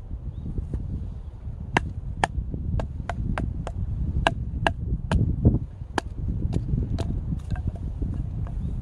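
Firewood being chopped by hand with a blade: about a dozen sharp strikes into wood, roughly two a second, starting a couple of seconds in.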